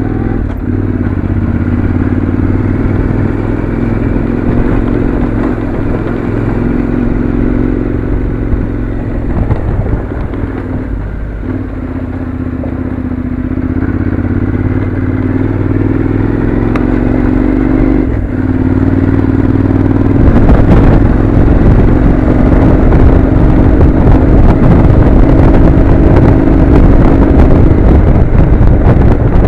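Honda NC700's parallel-twin engine running at steady, moderate revs on the move, with small rises and falls in pitch, under a rattle and clatter from riding over a gravel track. About twenty seconds in it gets louder and rougher.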